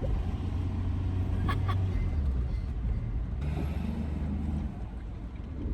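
Ford Transit van's swapped-in turbo-diesel engine running while driving, a steady low drone that shifts in pitch about two seconds in and again near the end. A couple of brief rattles come about a second and a half in.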